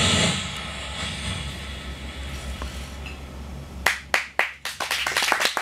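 A loud hiss dies away just after the start, leaving a steady low hum; about four seconds in, a few separate hand claps start and quickly thicken into applause.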